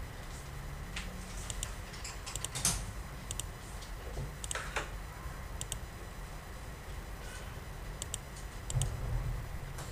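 Typing on a computer keyboard: irregular keystroke clicks in short clusters, over a steady low background hum.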